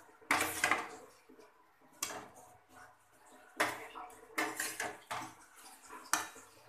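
Metal spatula clinking and scraping against a steel plate and a metal cooking pan as fried tilapia pieces are lifted into the boiling curry: a series of sharp clanks, about six, with short ringing.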